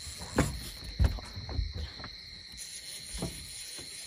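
Night insects, crickets or the like, chirring in a steady high drone. Several dull knocks and thumps sound over it, the loudest about half a second and a second in, from gear being handled close to the microphone.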